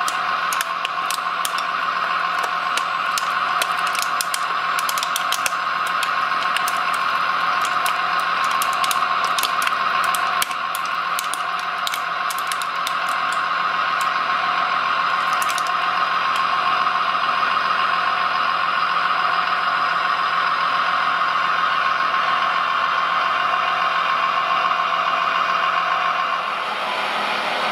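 RC hydraulic excavator (a 956 model) running, its hydraulic pump giving a steady, many-toned whine as the arm and grapple swing. A fast, irregular clicking and rattling rides over it through the first half and stops about halfway.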